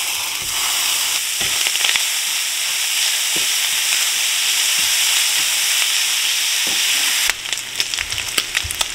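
Breakfast sausage sizzling as it browns in a hot nonstick skillet, with a spatula tapping and scraping in the pan now and then. About seven seconds in, the sizzle drops to a softer crackle.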